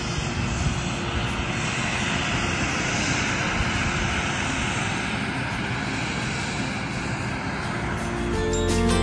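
Steady rushing hiss of steam venting from volcanic fumaroles. Music comes back in near the end.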